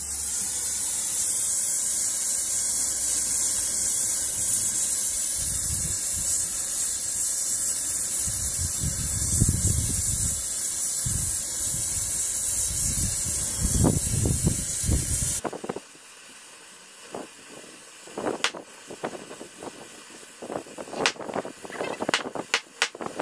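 Hand-held gas torch burning with a steady loud hiss and low rumbles of flame as it heats a steel bar clamped in a vise for bending; the owner calls the torch improperly adjusted. About fifteen seconds in the hiss cuts off suddenly, leaving a much quieter stretch with scattered clicks.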